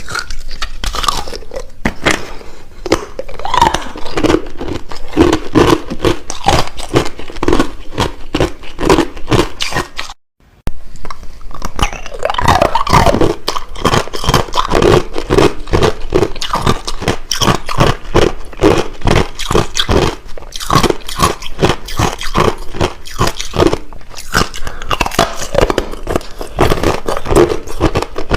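Hard clear crushed ice being chewed: a dense run of loud, irregular crunching and cracking bites, with a half-second break about ten seconds in.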